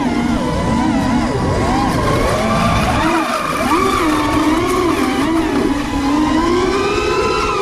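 Brushless electric motors whining at speed, their pitch rising and falling as the throttle changes, over a constant low rumble.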